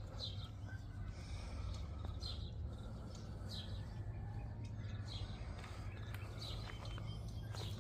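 A bird calling over and over, short falling chirps every second or two, over a steady low hum.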